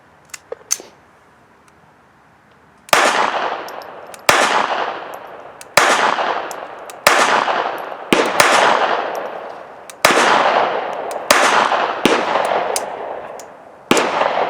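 Beretta 21A Bobcat .22 LR pocket pistol firing Aguila copper-plated high-velocity rounds one at a time, a shot every one to two seconds, each with a long echoing tail, the pistol cycling on every round. A couple of light metallic clicks come just before the first shot.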